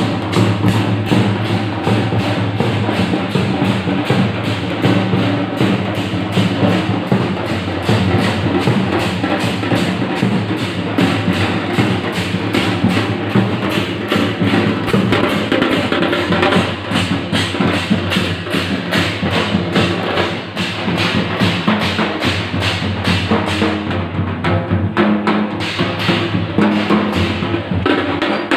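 Percussion-led music with fast, steady drumming.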